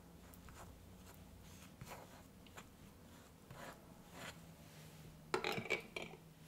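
A small metal spreading knife smearing strawberry jam over a soft chocolate cake disc: soft, sticky scraping strokes, with a louder cluster of scrapes and clicks near the end.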